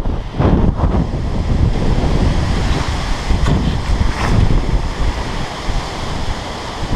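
Strong wind gusting, rising and falling, and buffeting the microphone with a heavy low rumble.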